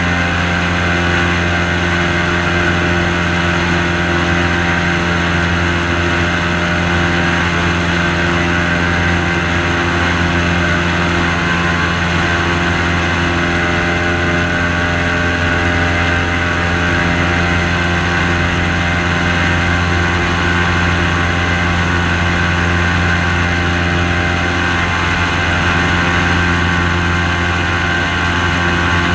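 Airboat's engine and propeller running steadily under way, a loud even drone that holds the same pitch and level throughout.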